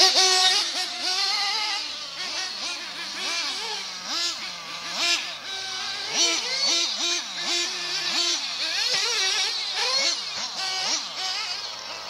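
Small glow-fuel engine of a 1/8-scale nitro RC buggy revving up and down over and over, a high whine that rises and falls roughly every half second to a second.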